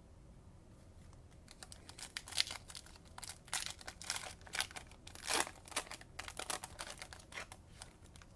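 Wrapper of a Bowman baseball card pack being torn open and crinkled by hand: a run of irregular crackling rustles starting about a second and a half in, loudest in a few sharp crinkles.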